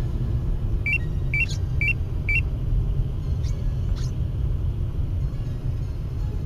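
Steady low rumble of a moving car's road and engine noise, heard from inside the car. About a second in come four short, high electronic beeps, evenly spaced about half a second apart.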